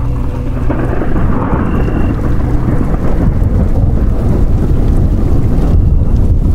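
Rain falling steadily with a low, rolling rumble of thunder.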